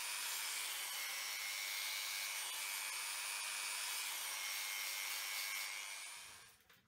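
Small electric finger belt sander running steadily, its narrow belt sanding the inside curve of a wooden mud guard: an even grinding hiss with a thin high whine, fading out near the end.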